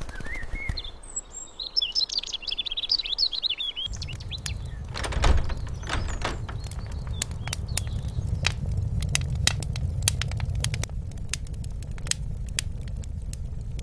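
Songbirds chirping for about four seconds, then a sudden switch to a wood fire crackling in a fireplace: irregular sharp pops over a low steady rumble, loudest about five seconds in.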